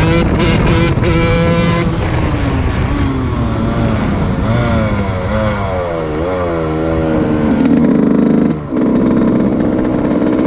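125 cc two-stroke dirt bike engine revving, its pitch sweeping up and down in repeated revs, then held high near the end with a brief dip about eight and a half seconds in. A beat of music runs over the first two seconds.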